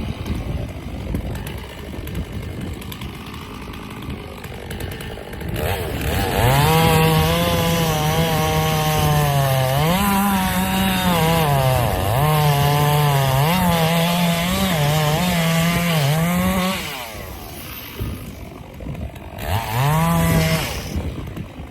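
Two-stroke chainsaw running low at first, then held at full throttle for about ten seconds as it cuts into the trunk of a mulberry tree, its pitch dipping and recovering as the chain loads in the wood. It drops back, then revs briefly once more near the end.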